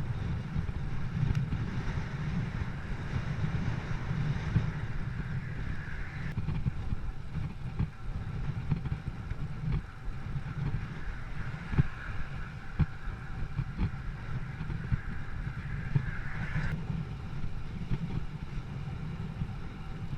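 Wind buffeting the microphone in a strong headwind, a dense low rumble with frequent gusty thumps. A fainter steady higher hiss rides over it and cuts off suddenly about six seconds in and again near the end.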